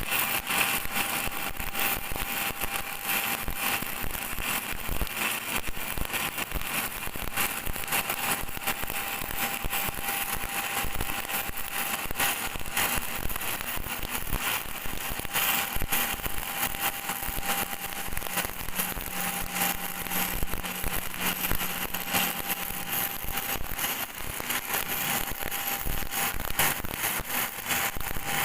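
Electric welding arc crackling and sizzling steadily, with a dense run of small sharp pops throughout. A faint steady hum sits under it, with a lower hum joining for a few seconds past the middle.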